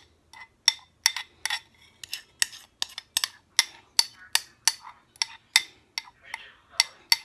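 A metal spoon clinking and scraping against the inside of a glass container as thick whipped dalgona coffee is scraped out, a quick run of sharp clinks about three a second.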